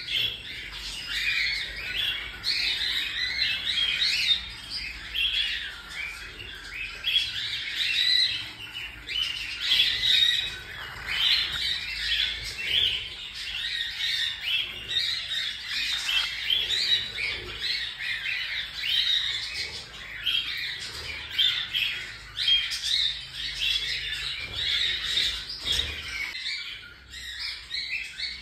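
A group of cockatiels chirping and squawking without pause, many short calls overlapping.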